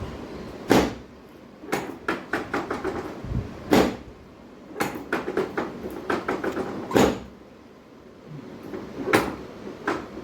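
Sharp knocks and thuds during a chiropractic treatment: four loud ones every two to three seconds, with quick runs of lighter knocks between them.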